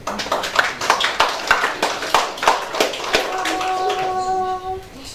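Audience applauding, a dense patter of many hands clapping, which dies away about three seconds in and gives way to a single steady held note for a second or two.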